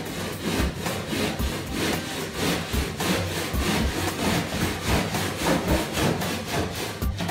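Handsaw cutting through a length of coving held in a plastic mitre box, with quick, even back-and-forth strokes, about three a second.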